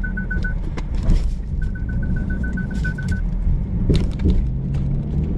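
Inside a car crawling over a rough, rutted dirt track: a steady low rumble with a few sharp knocks as the body jolts over the ruts. Over it a high electronic warning beep pulses rapidly, about nine beeps a second, in two runs during the first three seconds.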